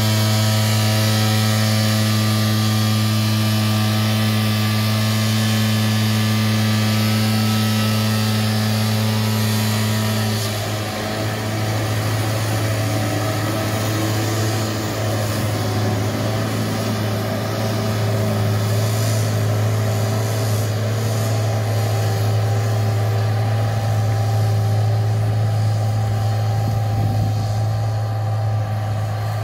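A tractor's diesel engine running steadily while it drives a mower cutting grass, a continuous low hum; the sound turns rougher about ten seconds in as the tractor pulls away.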